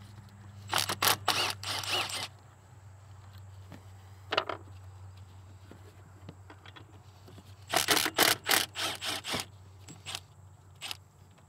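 Cordless power tool zipping out the 14 mm mounting bolts of a Duramax fuel injection control module. It runs in short bursts of rapid clicks: one about a second in lasting over a second, a brief one around four seconds, and another of about a second and a half near eight seconds. A steady low hum runs underneath.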